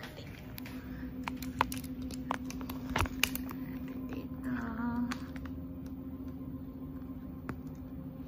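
Knocks and clicks from a phone camera being handled, over the steady hum of a kitchen appliance. A short wavering, voice-like sound comes about halfway through.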